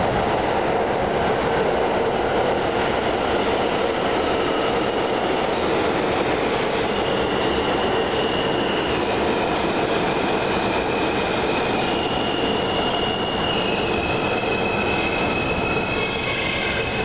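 New York City Subway R160A train pulling into an underground station and braking to a stop: a steady, loud rumble of wheels on rail. High-pitched squealing whines come and go from about seven seconds in and grow more numerous near the end as it slows.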